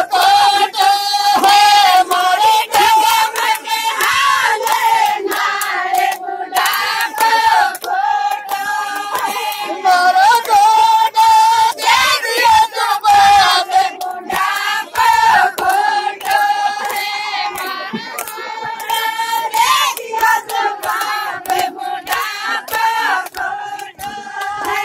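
A group of women singing a folk song together in chorus, in high voices without a break.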